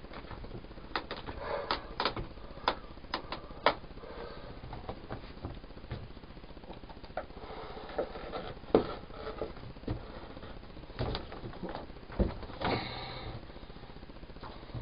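Craft knife cutting interlocking foam floor tiles, with the tiles being pressed and fitted into place. A quick run of sharp clicks comes in the first few seconds, then scattered knocks and rustling.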